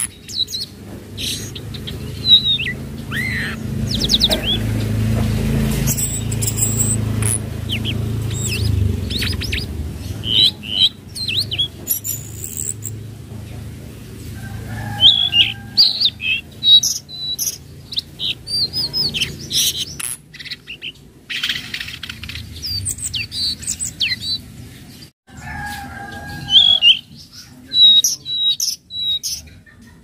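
Caged juvenile (speckled) tledekan laut, a blue flycatcher, singing: runs of quick chirps and short whistled glides in bursts with brief pauses between them.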